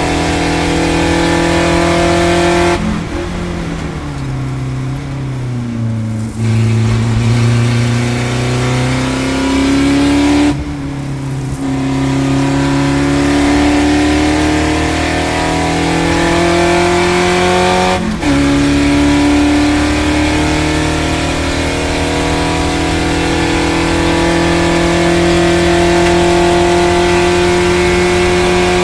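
Spec Racer Ford Gen2's Ford 2.0-litre Zetec four-cylinder engine heard from the cockpit at racing speed. About three seconds in the driver lifts for a corner and the engine note falls. From about six seconds it accelerates out of the corner with the pitch climbing, breaks briefly for upshifts about ten and eighteen seconds in, and then holds a high, slowly rising note down the straight.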